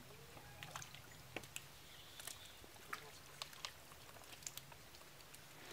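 Faint, scattered small splashes and ticks as wriggling fish are scooped out of shallow water in a mesh net with plastic scoops.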